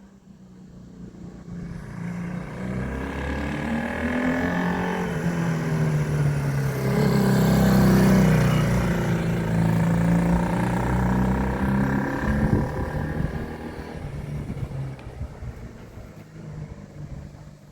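Honda CD175's 174 cc parallel-twin four-stroke engine as the motorcycle rides past: the engine sound builds as it approaches, is loudest about eight seconds in, then fades as it moves away.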